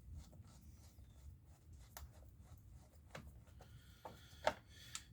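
Faint scattered clicks and scrapes of hands and tools working on a chainsaw's plastic housing, with a few sharper clicks, the loudest about four and a half seconds in.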